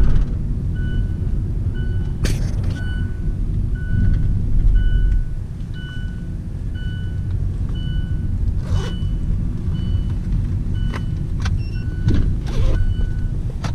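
Low road and engine rumble inside a moving car, with a short electronic beep repeating evenly about twice a second. A few sharp knocks come in between.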